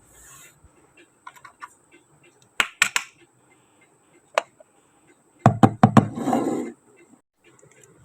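Miniature toy kitchen pieces being handled, giving sharp little clicks and taps in scattered groups, then a brief rustle.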